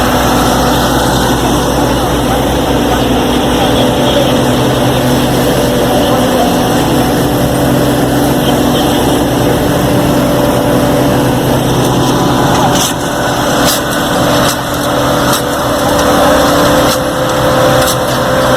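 Asphalt paver finisher's diesel engine running steadily at work. In the second half, a series of sharp metallic knocks comes roughly once a second.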